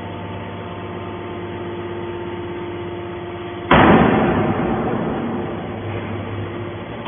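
A hydraulic can baler's motor running with a steady hum. About halfway through, a sudden loud noisy crash breaks in and fades away over about two seconds.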